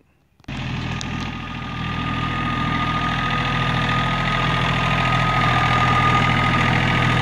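John Deere compact tractor's diesel engine running steadily, cutting in suddenly about half a second in, with a steady high whine over it.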